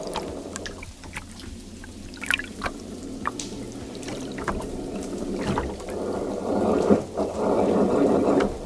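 Water pouring and trickling, with scattered sharp drips or splashes; the flow grows louder in the second half.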